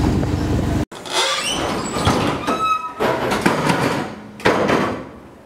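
A train running, heard from aboard as a steady low rumble, cut off abruptly about a second in. Then irregular clatter with a few brief squeaks and knocks, fading away near the end.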